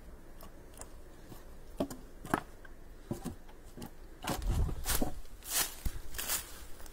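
Footsteps crunching through dry fallen leaves: a few light crackles at first, then steady, louder steps a little over half a second apart from about four seconds in.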